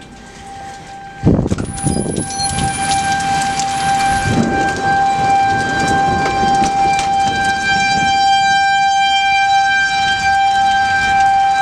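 A close thunderclap breaks suddenly about a second in, followed by loud rumbling thunder and rain. A steady high tone sounds underneath throughout.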